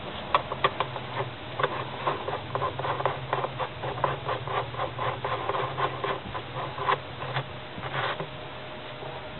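Irregular metallic clicks and scraping, a few a second, as the drum-retaining nut is fitted onto the washing machine drum's shaft, over a steady low hum.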